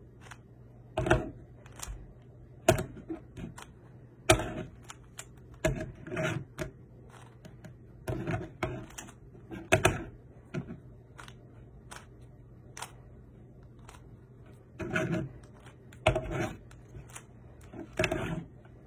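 Plastic speed cube being turned by hand, its layers clicking and clattering in irregular bursts of quick turns with short pauses between.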